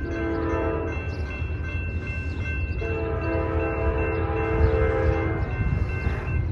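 Multi-chime air horn of an approaching Norfolk Southern GE C44-9W diesel locomotive sounding for a grade crossing: a blast that ends about a second in, then a longer one from about three seconds in to past five. Under it are a steady low rumble and the steady ringing of the crossing's warning bell.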